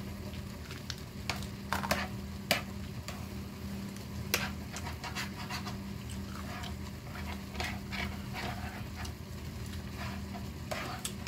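Fingers picking through salad in a clear plastic clamshell container and the salad being eaten: scattered crinkles, clicks and crunches over a steady low hum.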